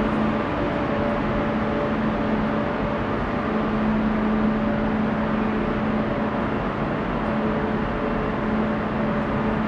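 Steady mechanical rumble and rush from an engine or machinery, with a low hum that fades in and out.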